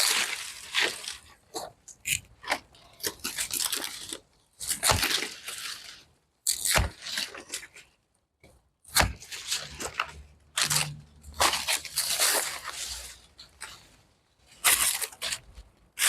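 Dry, dead plant growth crunching and tearing as it is cut back and cleared, in irregular crackly bursts with short pauses between.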